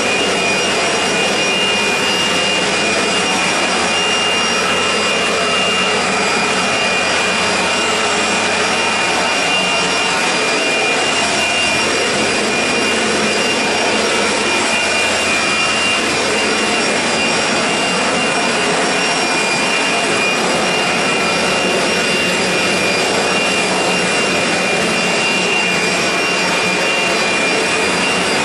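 Small electric blower running steadily at full speed, a rush of air with a high motor whine, used to blow sawdust off freshly sanded wood.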